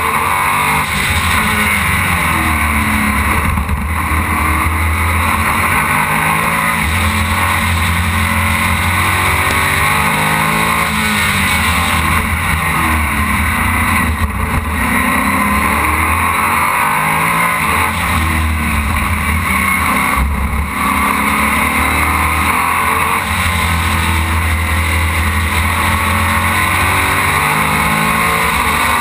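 Onboard sound of the Aquila CR1 racing car's engine at race pace, its pitch climbing and falling over and over as it accelerates and slows through the corners, over a steady rushing noise.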